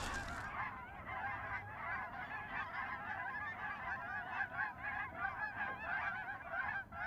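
A large flock of geese calling, many honks overlapping in a steady, unbroken chorus.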